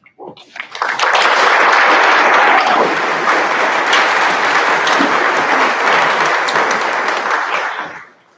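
Loud applause: many people clapping, building quickly about half a second in, holding steady, then stopping shortly before the end.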